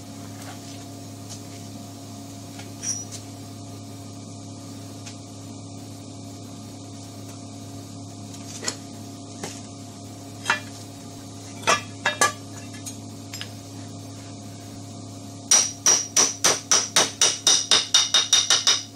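Rapid light hammer taps on metal, about five a second with a bright ringing tone, starting a few seconds before the end, as a seal is tapped into a 1957 GMC water pump part; earlier, a few scattered clinks and knocks of metal parts on the workbench over a steady low hum.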